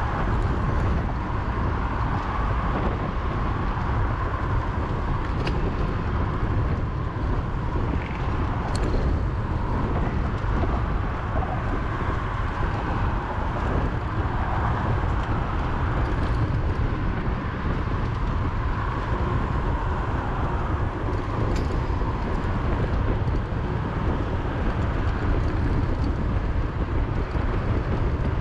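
Steady freeway traffic running alongside, heard over a low wind rumble on the microphone of a bicycle moving at about 20 mph.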